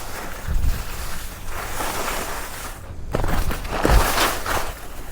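Wind rushing over the microphone while skiing downhill, with skis hissing and scraping over snow in uneven swells.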